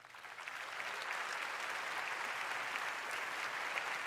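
Large audience applauding, swelling up over the first second and then holding steady as a dense patter of claps.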